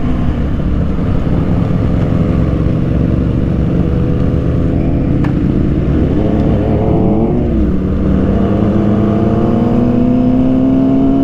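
Motorcycle engine running steadily under way at cruising speed. Its pitch rises and falls briefly about seven seconds in, then climbs slowly near the end, with one sharp click about five seconds in.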